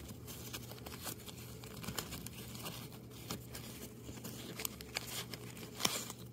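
Faint rustling and small clicks of a satin drawstring pouch being handled and its cord loosened, with a sharper tap just before the end.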